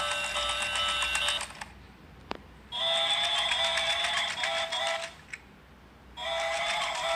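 Battery-powered toy train playing a high, thin electronic tune over a fast, even ticking. The tune stops twice for about a second, with a single click in each gap, then starts again.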